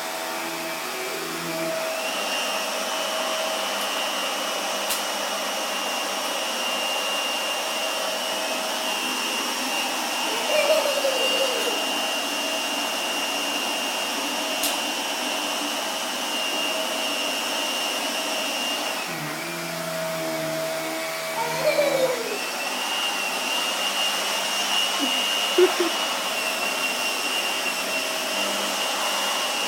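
Vacuum cleaner running steadily with a high whine. The whine drops away for a few seconds about two-thirds of the way through, then comes back.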